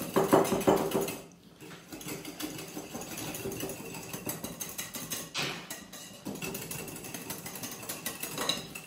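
Wire balloon whisk beating thick cream in a cut-glass bowl: rapid, steady clicking and scraping of the wires against the glass. There is a short pause about a second and a half in.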